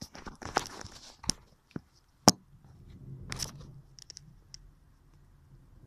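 Handling noise from a phone being moved about by hand: fingers rubbing and clicking on the device. There are several sharp clicks in the first second or so, one loud click about two seconds in, then a rougher rustle and a few small ticks.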